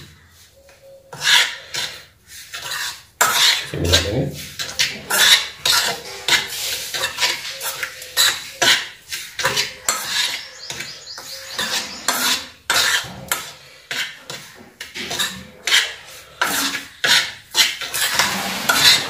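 Steel spoon stirring a dry flour-and-sugar mix in a steel pan: irregular scrapes and clinks of the spoon against the pan, about one or two a second.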